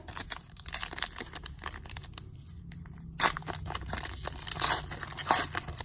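Trading-card pack wrapper being handled and torn open: crinkling and tearing with many small clicks, a sharp click a little after three seconds in.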